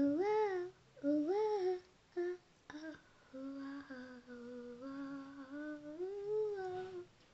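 A voice humming a tune without words: three short swooping notes first, then a longer, steadier melodic line that stops just before the end.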